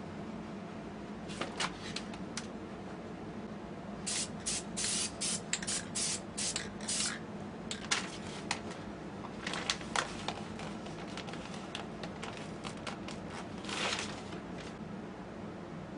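Aerosol spray paint can let off in quick short hisses, a rapid run of them in the middle and one longer spray near the end, over a steady low hum.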